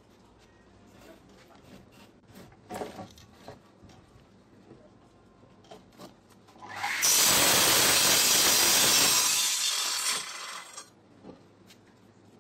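Compound miter saw starting up about seven seconds in and its blade cutting through a softwood board for about three seconds, then the noise dies away. Before that, a few light knocks from the board being set against the fence.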